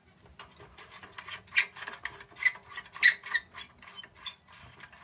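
An old Rayo Pony No. 21 tin lantern being handled: a run of irregular small metallic clicks, taps and squeaks from its sheet-metal parts, several a second.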